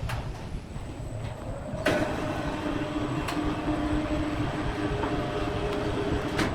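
Sawmill machinery running with a low rumble. About two seconds in there is a sharp knock, and a steady whine sets in and holds, with scattered clicks and knocks.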